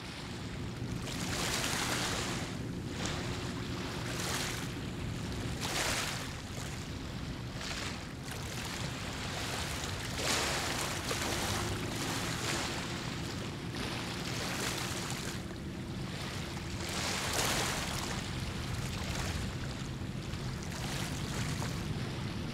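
Waterside ambience: a steady low rumble with a faint hum, and a hissing surge that swells and fades every few seconds.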